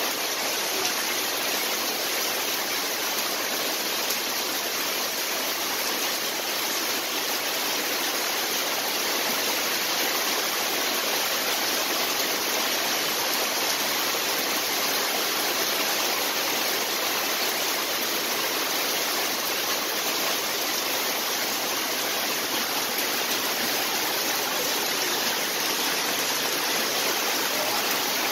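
Heavy tropical rain pouring down, a steady dense hiss of countless drops striking the water of a swimming pool.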